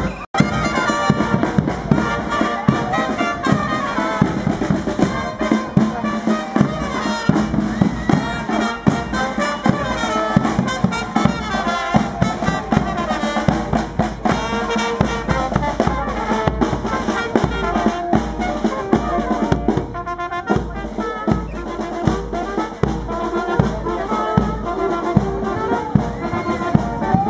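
Street band marching and playing: brass and saxophone over a snare drum and a large bass drum.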